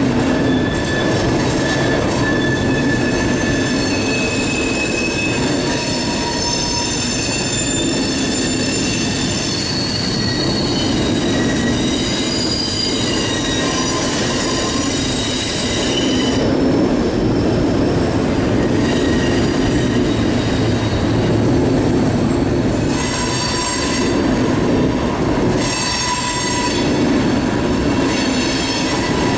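Freight train boxcars rolling past with a steady rumble, their wheels squealing in thin high tones that come and go.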